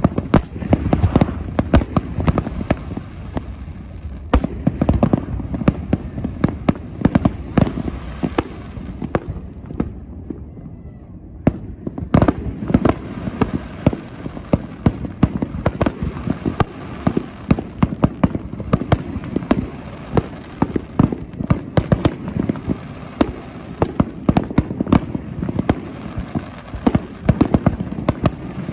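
Aerial fireworks display, shells bursting in rapid succession with many sharp bangs and crackles. The bangs ease off briefly about ten seconds in, then pick up again just as densely.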